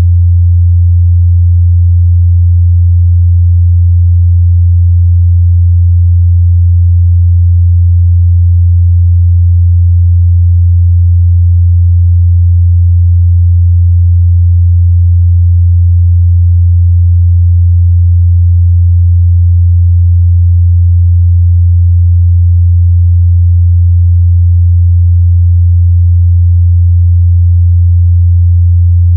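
A steady, loud 87 Hz sine-wave test tone, a low hum in the mid-bass, unchanging in pitch and level.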